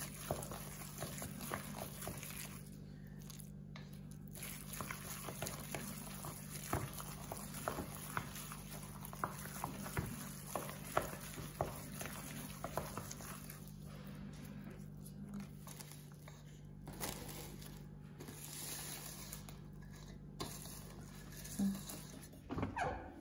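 Raw ground-meat mixture being stirred in a stainless steel bowl: wet squelching with many small irregular clicks and scrapes from the utensil against the bowl, over a steady low hum.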